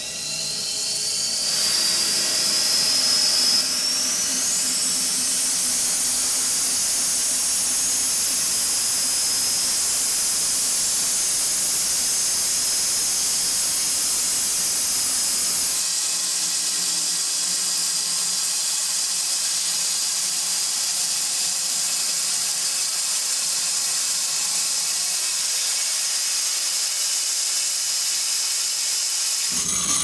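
Bandsaw mill running as its blade cuts lengthwise through an elm log, a high whine rising over the first few seconds and then settling into a steady hiss.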